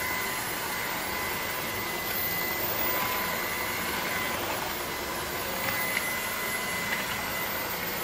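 AEG Ultimate 8000 cordless stick vacuum running steadily with its hard-floor nozzle on tile: a constant rush of suction air over a steady high motor whine, with a couple of brief clicks near the end.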